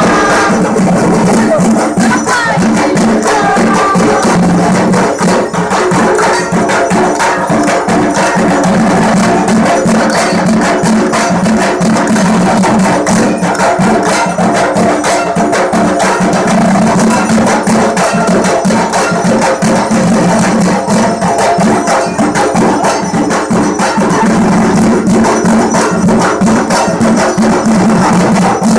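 Several dhak drums, the large barrel drums of Durga Puja, beaten in a fast, dense, unbroken rhythm.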